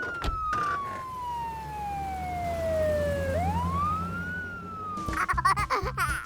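Cartoon emergency vehicle siren wailing: one tone rises, slides slowly down for about three seconds, then rises again and starts to fall, over a low engine rumble.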